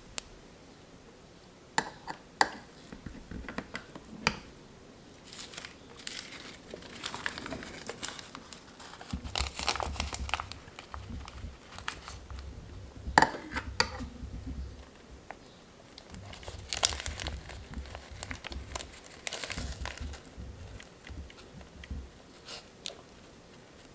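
Sheets of crisp roasted nori crinkling and crackling as they are handled and wrapped around spoonfuls of sushi bake, with a few sharp clicks of a metal spoon against the metal baking pan, the loudest about halfway through.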